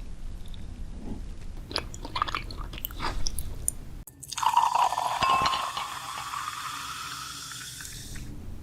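Close-up eating sounds: crunchy bites and chewing with short crisp crackles. About four seconds in, an abrupt change to a hissing, fizzing sound that fades out over the next few seconds.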